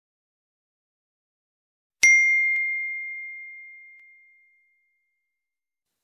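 A single bell-like ding about two seconds in, a clear high tone that rings out and fades away over about two and a half seconds: the notification-bell sound effect of a subscribe-button animation.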